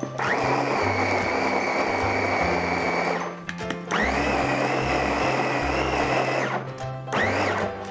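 Electric food chopper with a stainless-steel bowl mincing raw salmon meat, run in three pulses. Two long runs of about three and two and a half seconds are followed by a short burst near the end. Each one spins up with a rising whine and winds down.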